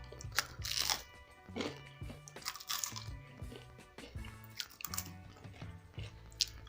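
Crunching bites and chewing of crispy chicken feet, with the loudest crunches about a second in and just before three seconds, then lighter ones, over background music.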